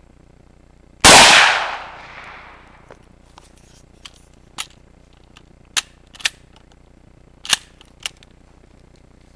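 A single rifle shot from a Gewehr 88 bolt-action rifle about a second in, its report echoing away over about two seconds. It is followed by a series of much quieter sharp clicks and clacks.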